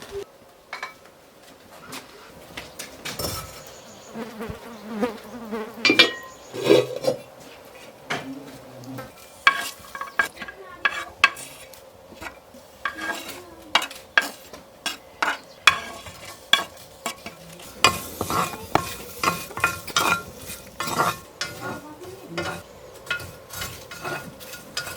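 Metal spoon stirring and clinking against a cooking pot, with scraping. The clinks are scattered at first and come thick and fast through the second half.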